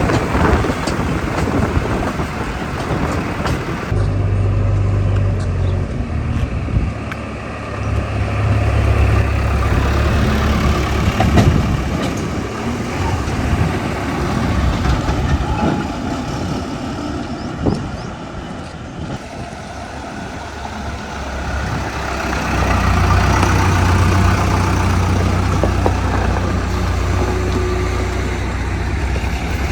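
Heavy diesel machinery engine running, its level swelling, easing off and swelling again, with a few short knocks mixed in.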